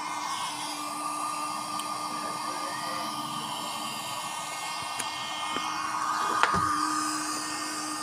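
Homemade mini hair dryer running steadily: a small motor-driven fan inside a PVC tee blows air over soldering-iron heating coils, giving a constant rush of air with a steady whine. A single sharp click comes about six and a half seconds in.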